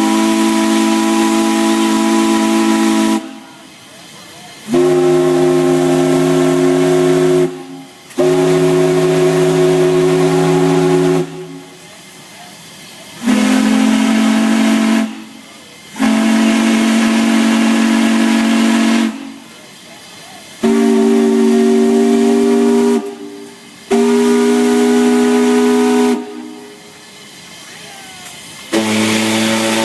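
Chime whistles blown in turn: about eight long blasts of two to three seconds each, every blast a steady chord of several tones, the chord changing from blast to blast. A hiss fills the short gaps between blasts.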